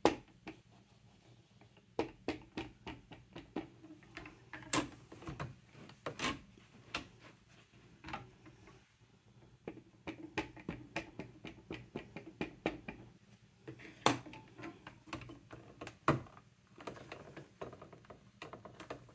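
Irregular light clicks and taps of paper-stamping tools being handled on a craft desk, with a few sharper knocks among them.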